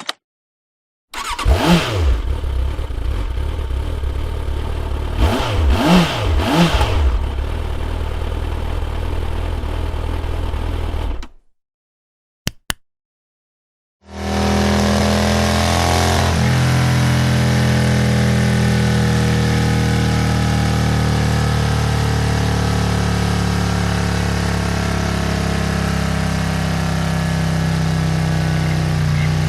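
Motorcycle engine sound effects: an engine revving up and down a few times, cutting off suddenly about eleven seconds in; after a short gap with two clicks, an engine runs steadily.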